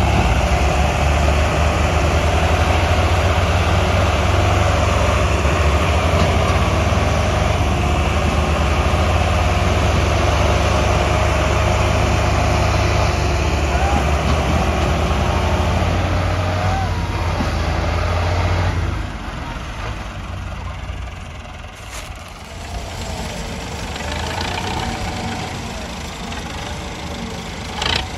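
Several farm tractors' diesel engines running hard under heavy load, straining to pull a stuck, sugarcane-laden trolley free. The loud, steady engine note drops off sharply about two-thirds of the way through as the engines ease back.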